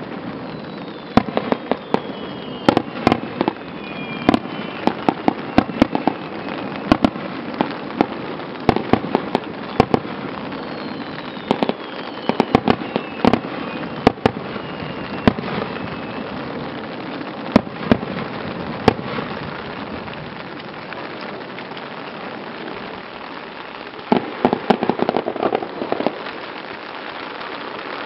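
Aerial firework shells bursting and crackling: many sharp, irregular pops over a steady hiss, with a couple of faint falling whistles early on and a dense cluster of pops near the end.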